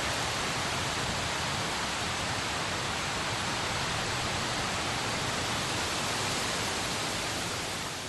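A steady, even rushing hiss with no pitch or rhythm, beginning to fade out near the end.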